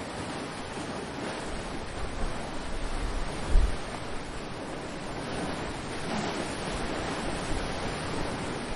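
Ocean surf washing steadily on the shore. Wind buffets the microphone with a low rumble a couple of seconds in, loudest in a short gust about three and a half seconds in.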